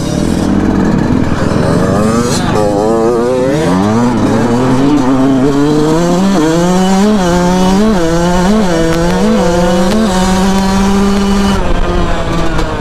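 Dirt bike engines at full throttle in a drag race: the engine note climbs, dips briefly over and over as the rider shifts up through the gears, holds steady, then falls away near the end as the throttle comes off.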